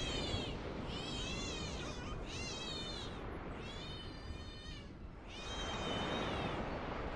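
A cat meowing repeatedly: five high-pitched calls, each under a second long with the pitch bending up and down, over a steady background hiss.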